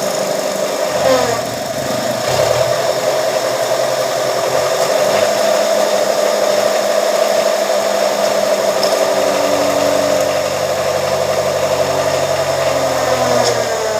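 Press machine's motor running steadily with a constant hum; a deeper hum comes in about two seconds in and drops away near the end, with a brief slide in pitch at each change.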